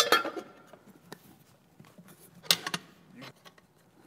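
Metal casing of an Inoxpa Hyginox SEN-20 pump being fitted back onto the pump body. A sharp metallic clink with a brief ring at the start, then a few lighter knocks and clicks, the loudest about two and a half seconds in.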